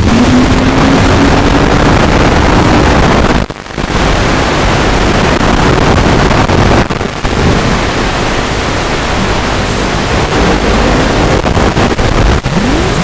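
Walkera F210 racing quadcopter's motors and propellers whining over heavy rushing noise, the motor pitch rising and falling with throttle, most clearly near the end. The sound drops out briefly twice, about three and a half and seven seconds in.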